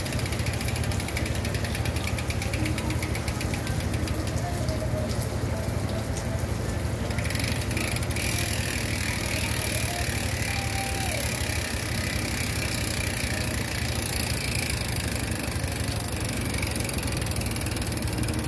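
A bicycle's rear freehub ticking rapidly as the wheel turns, stopping about seven seconds in, over a steady low rumble.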